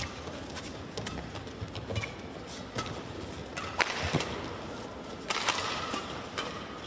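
A badminton doubles rally: rackets strike the shuttlecock in a fast, irregular run of sharp cracks, over the steady noise of the arena.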